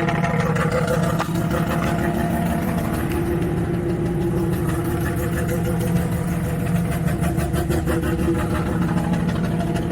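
Bridgeported Mazda 13B rotary engine idling steadily with the idle turned up high, warming up from a cold start in freezing weather.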